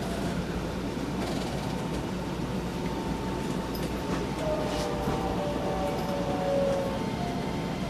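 Keisei 3000 series electric commuter train heard from inside a passenger car while running: a steady rumble and hiss of wheels on rail and running gear. Faint whining tones come and go in the middle.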